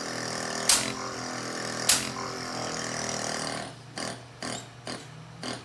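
Car engine running with the air-conditioning compressor working, a steady mechanical hum broken by three sharp clicks in the first two seconds. About two-thirds of the way in the hum drops quieter, and a few short knocks follow.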